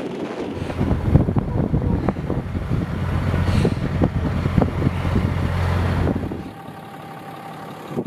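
A pickup truck's engine running steadily, with wind buffeting the microphone. The engine hum drops away about six seconds in.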